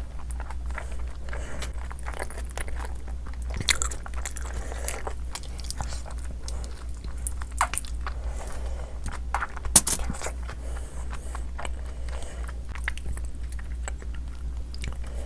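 Close-up mouth sounds of someone eating Schezwan noodles: steady chewing with many short wet clicks, a couple of louder ones near 4 and 10 seconds in, over a steady low hum.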